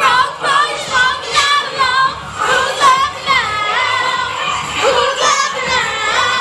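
Music with a high singing voice over a steady backing.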